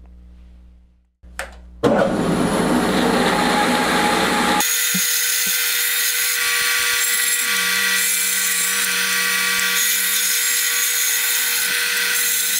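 Bandsaw cutting through a block of wood cast with black resin. A faint hum comes first, then from about two seconds in a loud, steady, high-pitched cutting noise.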